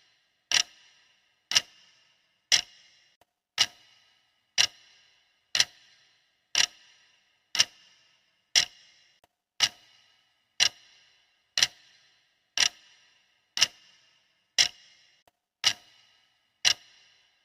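Clock ticking steadily, one sharp tick a second, each with a short ringing tail.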